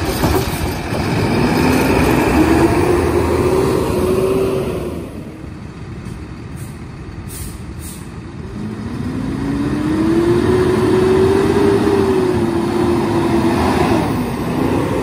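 Kenworth side-loader garbage truck's diesel engine revving up as the truck gets under way, its pitch rising over a few seconds, then dropping away about five seconds in. About eight and a half seconds in the engine comes up and climbs again as the truck drives up close, holding until near the end.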